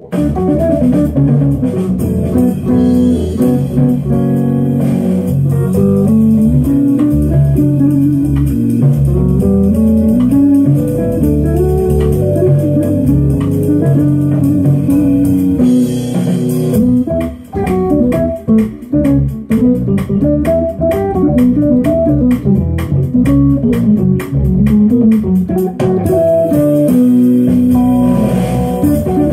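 Ibanez FGM300 electric guitar playing an instrumental piece, melodic lead lines over sustained low bass notes. Runs of fast, rapidly picked notes come in the middle.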